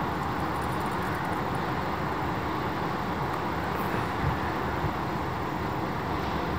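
Steady roar of small surf breaking along a beach, with a brief low thump about four seconds in.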